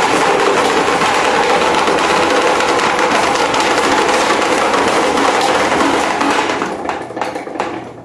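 Electric desk fans running together with a loud, steady whir. About two seconds before the end it fades away, with a few clicks.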